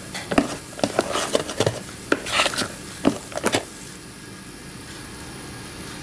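Metal spoon stirring thick semolina batter with raisins in a bowl: irregular clinks and scrapes of the spoon against the bowl, stopping about three and a half seconds in.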